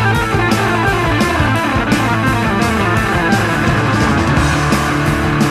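Rock music with guitar over a steady drum beat.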